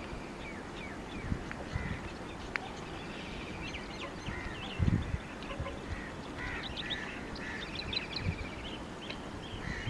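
Many small birds chirping and trilling over a steady outdoor background hiss, with a few low thumps, the loudest about halfway through.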